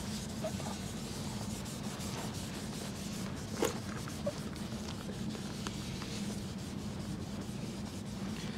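Rags rubbing gritty lapping compound off the bronze propeller's bore and the tapered propeller shaft: a steady, soft scrubbing, with a couple of light clicks around the middle.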